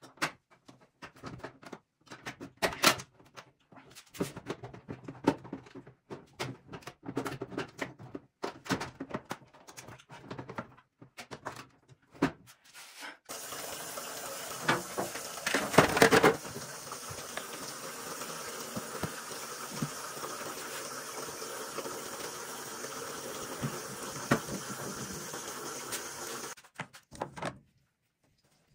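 Scattered plastic clicks and knocks as refrigerator door bins and shelves are handled. About halfway through, a tap starts running steadily into a stainless steel sink, splashing over a clear plastic fridge door bin, with a louder clatter soon after as it is moved under the stream; the water stops shortly before the end.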